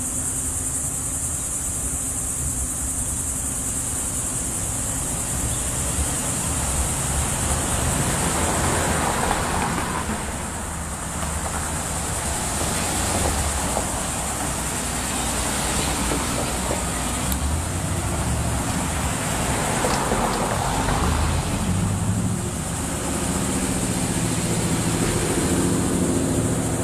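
Street traffic: cars driving slowly past, their engine and tyre noise swelling and fading as each one goes by.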